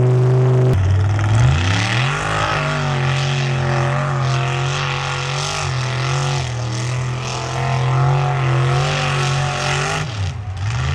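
Lifted Chevrolet mud-bogging pickup's engine revving up and then held at high revs, its pitch wavering as it drives through the bog, with a short dip near the end.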